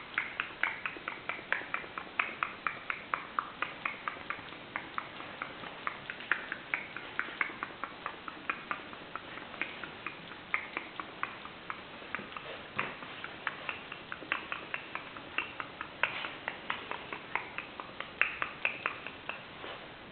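Five-week-old Alaskan Malamute puppies yelping in short, high cries, about three a second, continuously.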